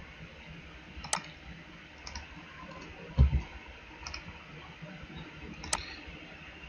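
Two sharp computer mouse clicks about four and a half seconds apart, with a dull low thump between them, over a faint steady hiss.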